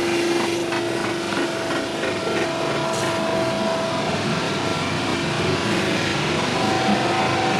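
CN freight train rolling past: steady wheel-and-rail noise with a scatter of clicks in the first couple of seconds and a faint steady tone through the first half.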